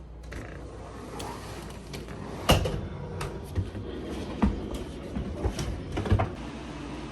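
A kitchen cupboard or drawer being shut, several sharp knocks and small clatters over a low steady hum, the loudest about two and a half seconds in.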